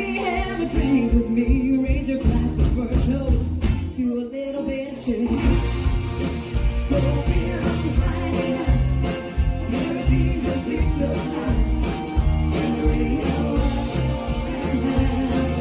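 Live country band playing, with a lead vocal over guitars and drums. The band thins out briefly about four seconds in, then comes back fuller.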